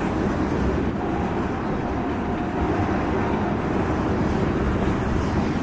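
Freight train of tank cars rolling past: a steady low rumble of wheels on rail. A faint thin squeal comes in about a second in and fades after about three and a half seconds.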